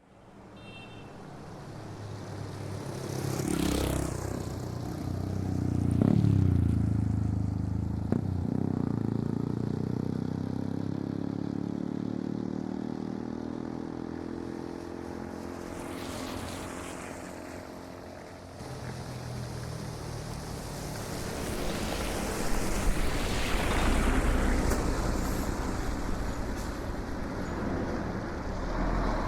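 City street ambience of road traffic: vehicles pass one after another, each swelling and fading, over a steady low rumble. One engine's pitch slowly rises and falls as it goes by around the middle. The sound fades in at the start.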